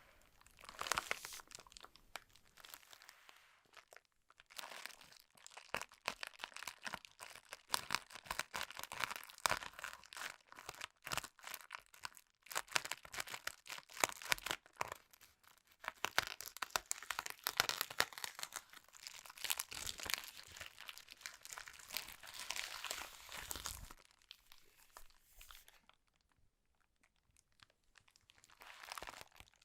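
Packaging being handled: irregular crinkling and tearing of plastic or paper wrapping, going on for most of the time and thinning out near the end.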